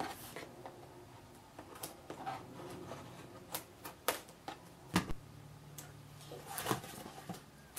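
Scissors cutting the packing tape on a cardboard box: a scatter of sharp snips and clicks, the loudest about five seconds in, then cardboard being handled as the box is opened near the end.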